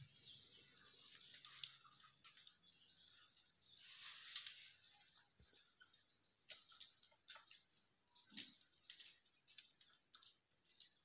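Wood fire crackling faintly in a mud chulha: sparse, irregular snaps and ticks, loudest in a cluster in the second half.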